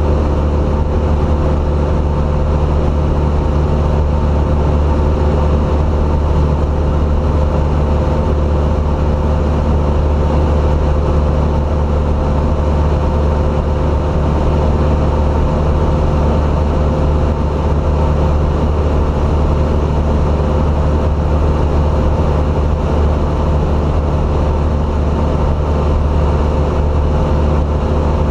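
Piston engine and propeller of a single-engine light aircraft droning steadily in cruise, heard inside the cabin with a hum of airflow.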